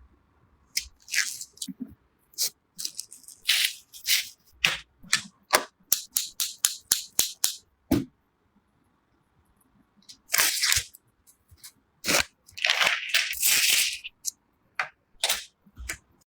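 PC hardware being handled and fitted together: a string of sharp clicks and snaps, over a dozen in quick succession in the first half, then longer rustling, scraping bursts about ten seconds in and again around thirteen seconds.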